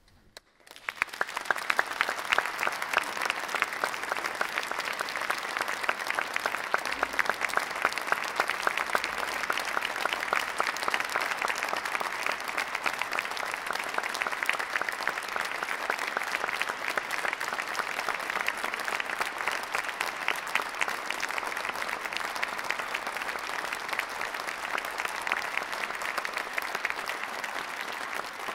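Audience applauding, a dense steady clapping that breaks out about a second in after near silence.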